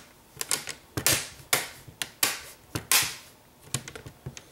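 Plastic screen bezel of an HP 15-bs laptop being pressed onto the display lid by hand, its clips snapping into place in a string of irregular sharp clicks.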